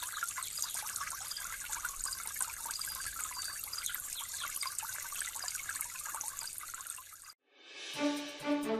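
A steady, crackly hiss that cuts off abruptly about seven seconds in. After a brief silence, music with repeated pitched notes begins near the end.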